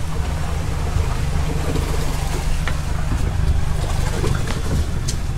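Tour boat's outboard motor running steadily, a low rumble as the boat moves along the channel.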